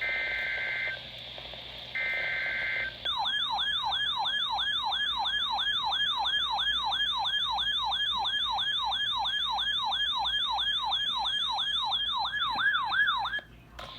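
Emergency Alert System header: the last two of three short digital data bursts, each about a second long with a second's gap between them. Then an alert tone that sweeps up and down like a siren yelp, about three times a second, runs for some ten seconds and cuts off, announcing the severe thunderstorm warning.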